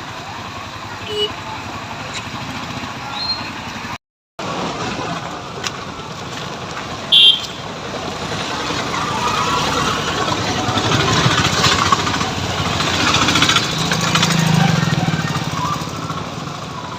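Road traffic: a motor vehicle passes, its noise swelling for several seconds in the second half and then fading, with a short high beep like a horn about seven seconds in.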